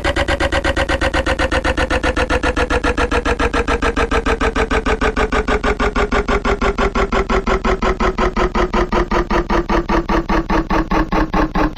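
Electric fan running down: a loud hum falling steadily in pitch, with a fast rhythmic pulsing that slows along with it.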